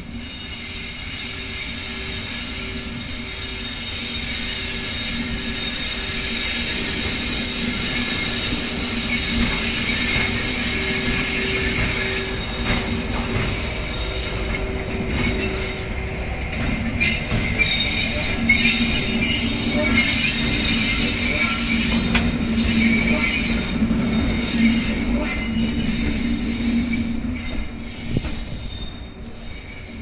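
Two coupled electric locomotives, a JR EF81 hauling an ED75, rolling slowly past with their wheels squealing in several steady high tones. Sharp clicks from the wheels on the rails come through in the second half. The sound grows louder as the locomotives pass and falls away near the end.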